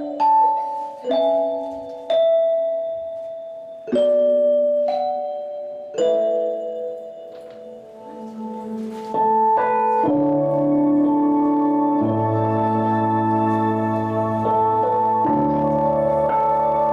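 Keyboard music: soft piano-like chords struck one at a time and left to ring, then, about ten seconds in, held chords with a low bass line come in and sustain.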